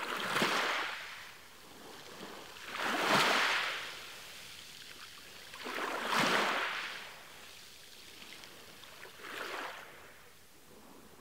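Small waves washing in over a pebbly shore: four swells of surf about three seconds apart, the last one weaker.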